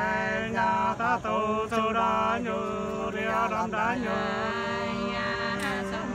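Two men singing Nùng sli folk song together, unaccompanied, in long held notes that waver and slide in pitch, one voice holding a steady low line under the other, with brief breaths between phrases.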